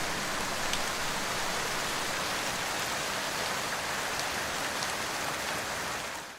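Steady rainfall, an even hiss with a few distinct drops ticking through it, fading out near the end.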